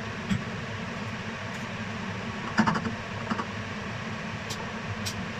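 Cookware clinking and knocking: a metal pot and utensil tapping against a clay baking dish as potato stew is tipped into it, with a few sharp clicks and the loudest short cluster about halfway through. A steady hum runs underneath.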